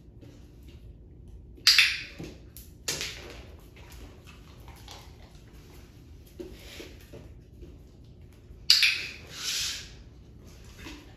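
Dry dog kibble dropped onto a hard vinyl floor, rattling and scattering. This happens twice, about two seconds in and again near the end, with smaller rattles and clicks between.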